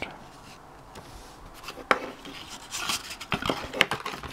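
Handling of a small cardboard box and its paper leaflets: irregular rustling with a few sharp clicks and taps, the loudest near the end.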